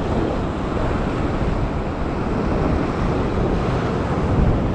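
Steady wind rumble on the microphone over waves washing against coastal rocks.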